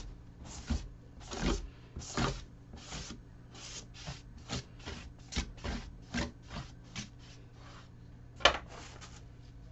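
A brush dragging acrylic paint across a bare MDF board in short scraping strokes, about two to three a second, with one louder stroke near the end.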